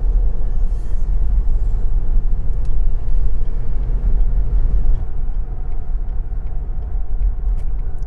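Steady low rumble of a car driving, road and engine noise heard from inside the cabin, easing slightly about five seconds in.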